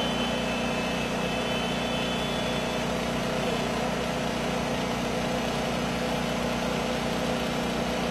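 An engine running steadily: a constant hum with an even hiss, unchanging throughout.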